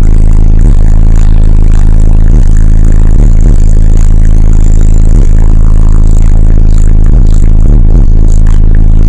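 Bass-heavy music pounding from a car audio system of two 18-inch and two 15-inch subwoofers, loud enough that the recording stays pinned at full level and sounds overdriven and distorted.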